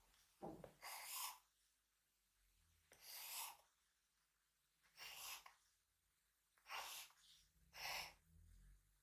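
Faint, short strokes of a drawing tool scratching across paper, about five of them at uneven intervals of one to two seconds.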